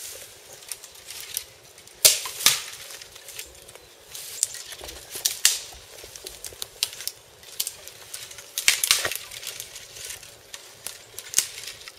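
Dry dead lower branches of conifer trees snapping as they are broken off by hand: an irregular run of sharp cracks and twig crackles, loudest about two seconds in and again around nine seconds.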